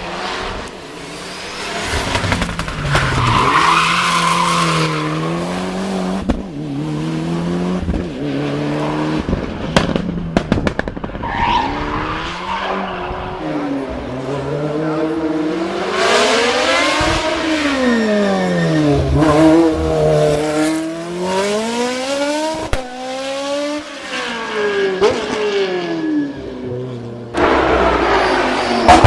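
Race car engine accelerating hard and shifting up and down through the gears, its pitch rising and falling again and again, with a sudden loud burst near the end.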